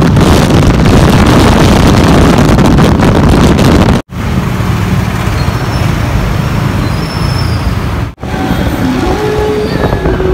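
Wind rushing hard over the microphone of a riding motorcycle at speed, then, after abrupt cuts about four and eight seconds in, the steadier rumble of engines and traffic while riding slowly through city traffic.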